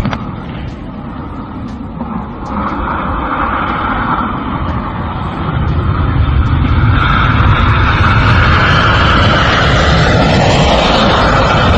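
Jet aircraft engine noise, a loud steady roar that grows louder about five and a half seconds in, with a faint falling tone near the end.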